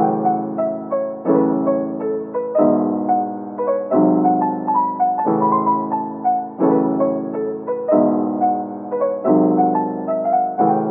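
Background music: a gentle piano piece with a chord struck about every second and a quarter under a light melody.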